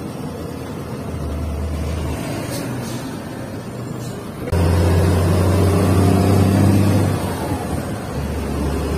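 Volvo truck's diesel engine heard from inside the cab while driving; about halfway through it suddenly gets louder, pulling harder, and eases back after two or three seconds.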